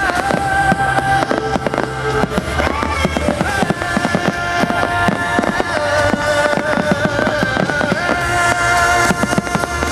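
Fireworks display: rapid bangs and crackles of bursting firework shells over loud accompanying music with long held notes.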